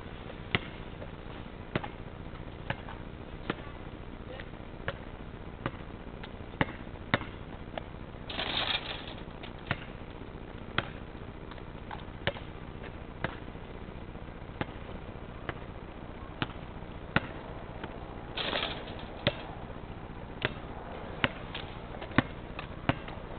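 A basketball bouncing on asphalt, single sharp knocks about once a second, with two louder, noisier sounds about a second long, roughly ten seconds apart.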